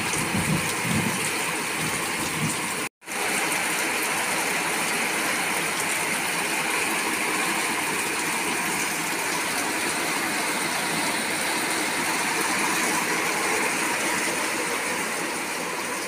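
Heavy monsoon rain falling steadily as an even rushing hiss, with water pouring off the roof edge. The sound cuts out for a moment about three seconds in.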